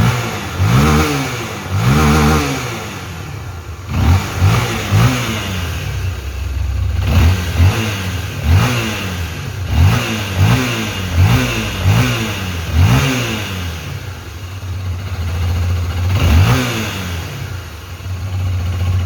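Honda XRE 300 / CB 300 single-cylinder engine at idle, revved in about fifteen quick throttle blips that fall back to idle each time. It runs with fresh crankshaft main bearings, and the bearing rumble is gone.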